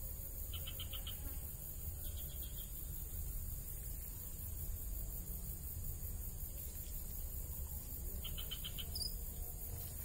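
Three short, rapid pulsed trills from a calling animal in the swamp vegetation, each under a second long, over a steady low rumble.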